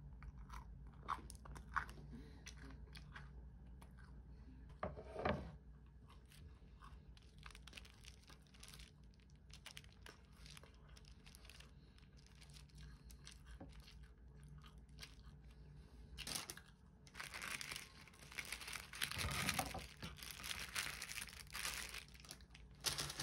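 Crisp waffle being torn and chewed, in scattered crunching clicks. Near the end, greaseproof paper crinkles loudly and steadily as it is gathered up off a wooden plate.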